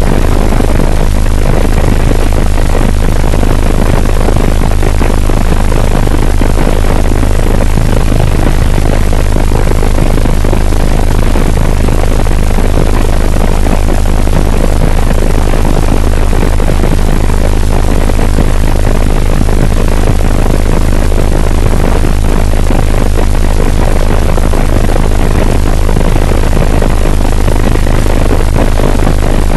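Helicopter in flight: loud, steady rotor and engine noise with a strong low drone and no change in level.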